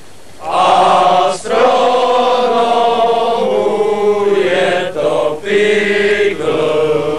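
Chant-like singing: slow phrases of long held notes with short breaks between them, starting about half a second in.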